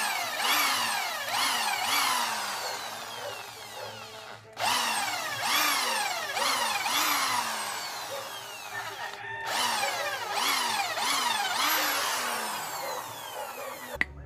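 Corded electric drill boring into a small piece of wood, run in quick repeated bursts. The motor's whine falls in pitch each time, a little faster than once a second, with two brief breaks.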